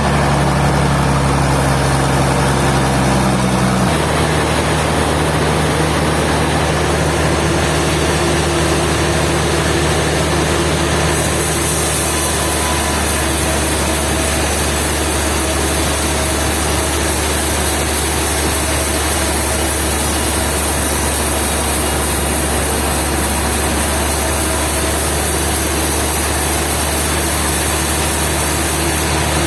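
An engine running steadily, with a deep, even hum. The sound shifts abruptly about four seconds in, and a high hiss joins it about eleven seconds in.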